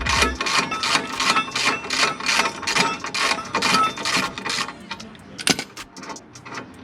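Ratchet wrench being worked in quick strokes, a fast run of metallic clicking about four strokes a second, as brake parts are bolted back on. It thins to a few separate clicks near the end.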